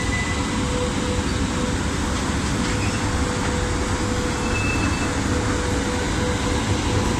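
Electric locomotive running close by: a steady, loud mechanical noise with a thin steady hum over it.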